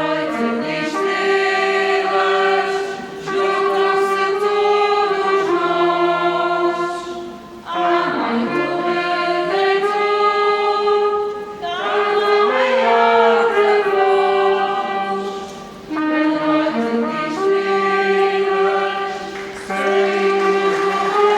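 A choir of mixed voices singing a folk song in long held phrases of about four seconds each, with short pauses for breath between them.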